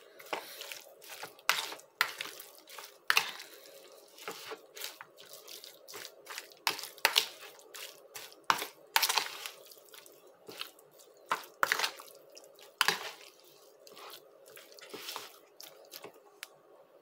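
A metal spoon stirring sliced raw beef in a wet soy-sauce and lemon marinade in a plastic bowl: irregular wet squelches and sharp clicks of the spoon against the bowl, fewer over the last few seconds, over a faint steady hum.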